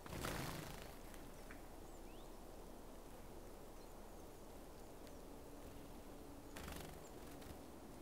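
Wingbeats of small birds flying onto and off a seed feeder: a brief flutter at the start, the loudest sound, and a weaker one about six and a half seconds in, with faint high bird chirps in between.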